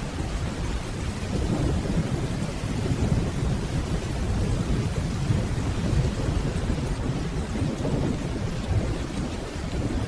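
Steady rainfall with a low, continuous rumble of distant thunder beneath it.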